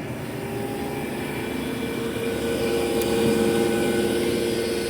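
A steady mechanical drone with a couple of held humming tones, swelling a little around the middle and easing off near the end.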